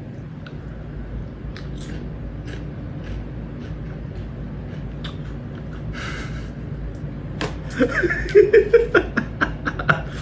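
Cat litter clicking and rustling under a kitten moving and digging in a litter box, over a steady low hum. There is a short rustle about six seconds in, and the clicks come thicker near the end.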